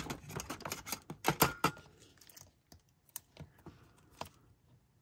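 Quick crackling clicks of paper and adhesive being handled as the release backing is peeled off a 3D foam mounting square, densest in the first two seconds. Then a few scattered taps and rustles as the foam-backed card layer is pressed down onto the card.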